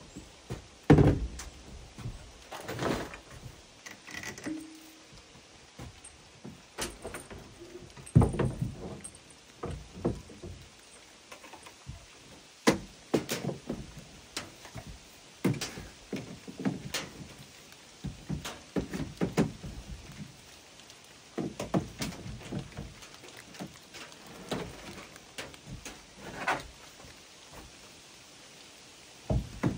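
Irregular knocks and thuds, some loud, coming every second or so over a faint steady hiss: objects being handled and set down.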